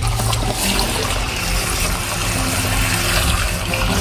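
Water from a garden hose pouring and splashing into the plastic tank of a backpack crop sprayer through its filter basket, steady throughout as the tank fills.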